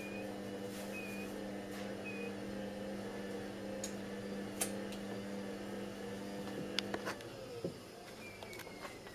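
Whirlpool washing machine running with a steady electric hum that stops about seven seconds in, with a few sharp clicks around the stop.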